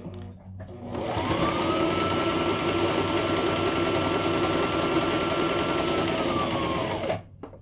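Brother electric sewing machine stitching a long basting stitch: the motor winds up about a second in, runs at a steady speed, and winds down to a stop near the end.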